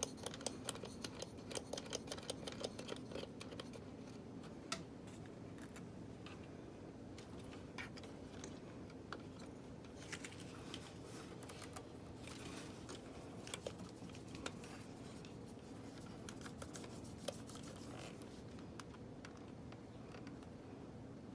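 Faint, scattered small clicks and light scratching from hands handling cooler parts and hardware, with dense runs of clicks near the start and again midway, over a steady low hum.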